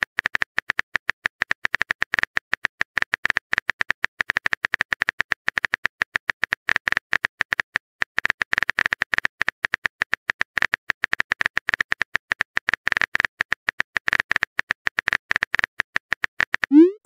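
Phone-keyboard typing sound effect: rapid clicks, many a second without a break, as a chat message is typed out. Near the end a short rising swoop, the message-send sound.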